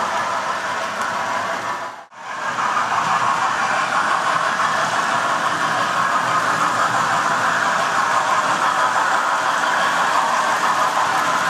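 Model railway trains running on their tracks: a steady whirring rattle of small electric motors and wheels on metal rails, briefly dropping out about two seconds in.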